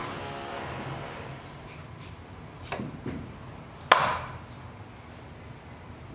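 Meat cleaver chopping through black-skinned chicken on a wooden chopping block. There are a couple of lighter knocks about three seconds in, then one sharp chop that rings briefly about four seconds in.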